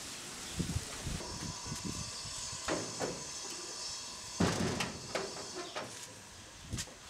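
Knocks and metallic rattles on a sheet-steel gate and its sliding bolt latch: a string of separate clanks, the loudest about four and a half seconds in.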